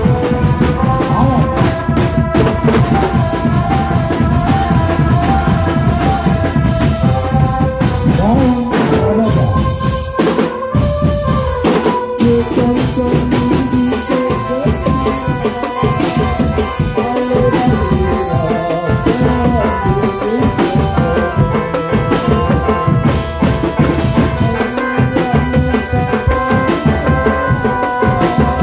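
Drum band playing: busy drumming with bass drum under a stepping melody line, with a brief break about ten seconds in.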